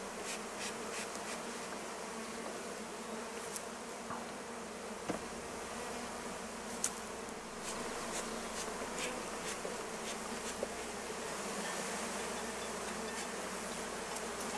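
A mass of honey bees buzzing in a steady drone, with scattered light clicks, as a package of bees is tipped and shaken into a new hive.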